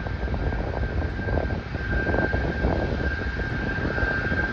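Boeing 787 jet engines running on the runway: a steady high whine over a continuous low rumble.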